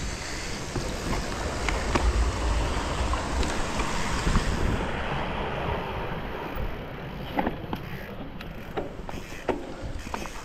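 Mountain bike ridden along a dirt trail: wind buffeting the camera microphone over tyre noise, with scattered clicks and rattles from the bike over bumps. The rushing eases about halfway through, leaving the clicks more distinct.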